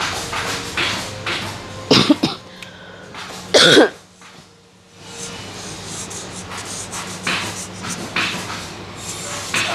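A person coughs sharply twice, about two and three and a half seconds in. After that, a felt-tip marker scratches across kraft pattern paper in short quick strokes as a label is written.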